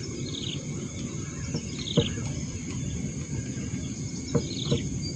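Steady high-pitched drone of insects, with a short chirp repeating about every second and a half and a few light knocks.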